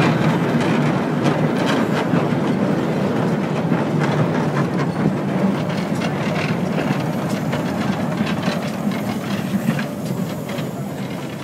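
Small steam saddle-tank shunting locomotive and its wagons rolling slowly past on the rails, steel wheels rumbling with a steady clatter of clicks, growing fainter toward the end.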